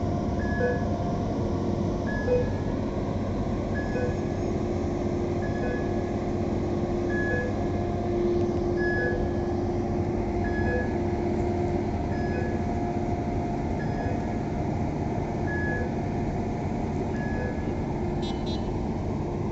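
Liebherr 550 mobile harbour crane running with a steady drone and hum, its warning beeper sounding a short beep about every two seconds.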